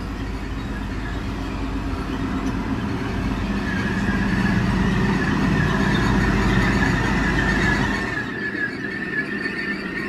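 XPT power car's Paxman VP185 diesel engine running as the train draws into the platform, growing louder as it approaches, with a high steady squeal of the brakes setting in about four seconds in as it slows. The engine rumble drops off about eight seconds in while the squeal carries on.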